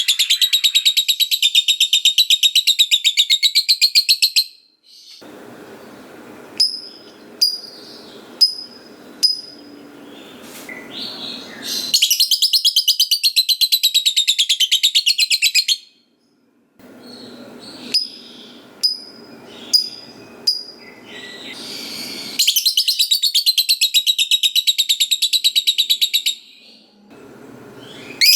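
Lovebird giving long rattling 'ngekek' chatters: three runs of very rapid, high-pitched pulsed notes, each about four seconds long. Short sharp chirps fall between them over a faint low rushing noise.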